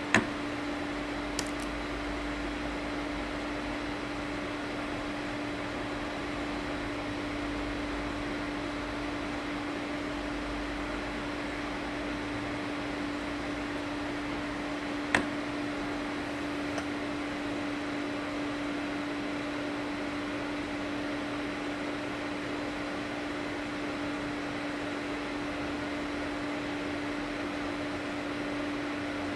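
Steady machine hum with one constant low-middle tone over an even hiss, broken by sharp clicks: a loud one at the very start, a faint one just after, another loud one about halfway and a faint one soon after it.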